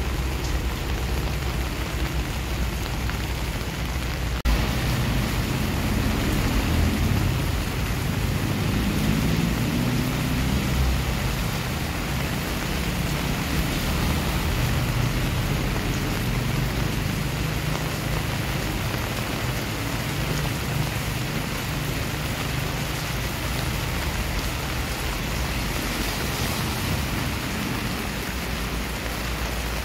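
Steady rain falling on a wet, puddled concrete driveway and garden foliage, splashing on the surface.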